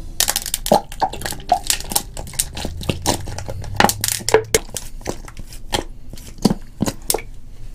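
Thin plastic water bottle crinkling and crackling as it is handled and squeezed: many sharp, irregular crackles.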